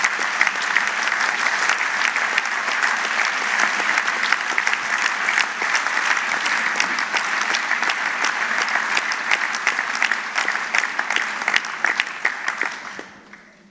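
A large audience applauding steadily, the clapping fading out near the end.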